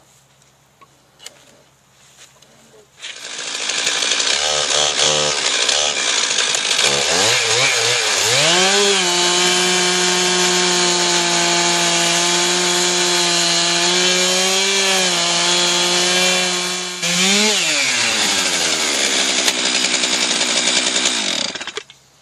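Chainsaw on an Alaskan chainsaw mill, fitted with a ripping chain, ripping a Douglas fir log lengthwise. It comes in suddenly about three seconds in, runs low and uneven for a few seconds, revs up to a steady full-throttle run, dips briefly and revs back up about two-thirds of the way through, then stops a second before the end.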